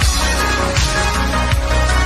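Background music with deep held bass notes and a steady beat.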